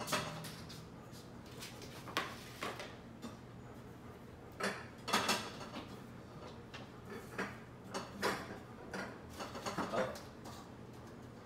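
Knocks and clinks of dishes and a cabinet door as a plate and a glass are taken out of an upper kitchen cabinet and set on the counter, in scattered single hits with a cluster about five seconds in and another around ten seconds.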